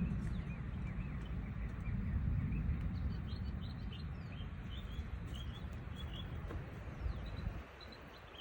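Wind noise on the microphone, with small birds chirping over and over; the wind drops away near the end.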